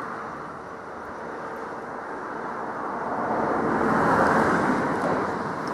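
Preserved steam locomotive and train working past, a noisy mechanical sound that grows louder to a peak about four seconds in and then eases slightly.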